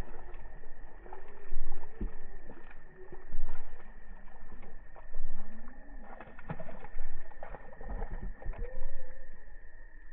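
A dove cooing in repeated low, rising-and-falling phrases every second or two, with scattered short clicks and knocks.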